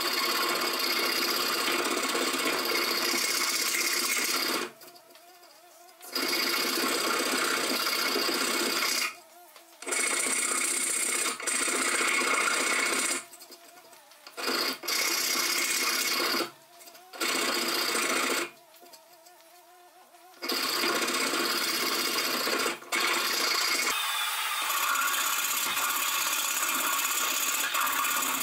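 Hand file rasping steadily across a wooden handle piece clamped in a vise, in long stretches of several seconds broken by a few short pauses.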